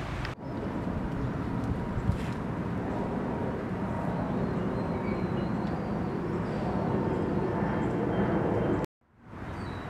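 Outdoor ambience of steady wind buffeting the microphone, with a few faint bird chirps. The sound drops out for a moment near the end.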